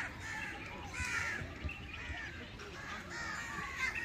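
Crows cawing over and over, many short calls in quick succession.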